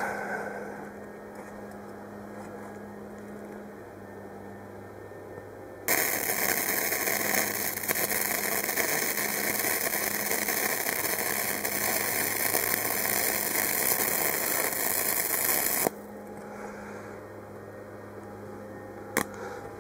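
Flux-core arc welding with a Harbor Freight Easy-Flux 125 inverter welder, running a bead where a stainless V-band flange meets mild-steel exhaust pipe. About six seconds in, the arc strikes and crackles steadily for about ten seconds, then cuts off suddenly. A low hum is heard before and after the arc.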